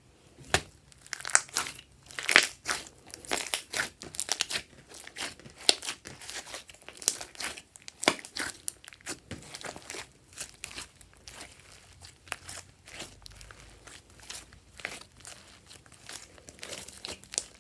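Hands stretching, squeezing and folding a large lump of glossy slime, which gives off a dense run of irregular sticky crackles and pops. The pops come thickest for the first half and thin out after that.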